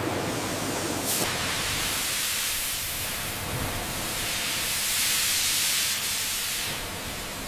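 Steady rushing hiss of a food-processing line's machinery, brighter and louder for a couple of seconds past the middle.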